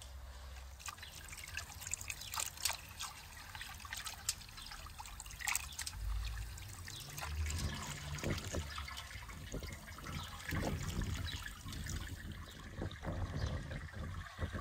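Water trickling and splashing, with scattered light clicks and knocks of handling; low thuds come more often in the second half.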